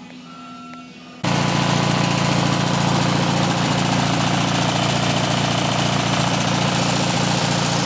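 Briggs & Stratton 20 HP opposed-twin engine (Model 46) on a garden tractor running at a steady speed, cutting in about a second in. It runs on an ignition coil borrowed from a spare 16.5 HP engine, both of its own coils having failed.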